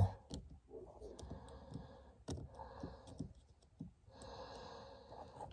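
Faint clicks and handling noise of fingers and a test light probe working plastic blade fuses in a fuse panel, the sharpest click about two seconds in, with two soft stretches of breath-like hiss.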